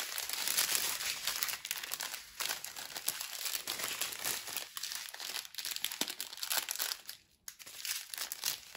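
Clear plastic sleeve crinkling and rustling continuously as it is handled, with a brief pause near the end.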